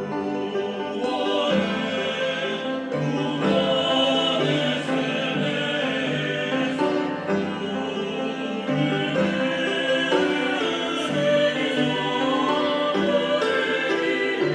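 A sacred song sung in a classical style, the voice wavering in vibrato on held notes, with instrumental accompaniment.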